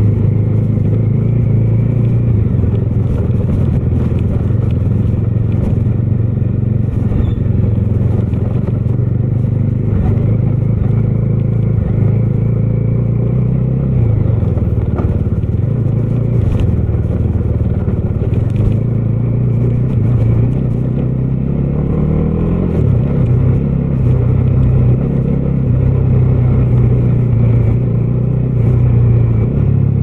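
Bajaj Dominar 250's single-cylinder engine running at low road speed on a rough gravel track, its pitch rising and falling a little with the throttle. Scattered clicks and rattles come through as the bike rides over the stones.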